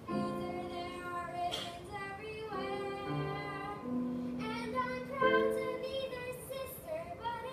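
A girl singing a song solo over instrumental accompaniment, the backing holding chords that change every second or so.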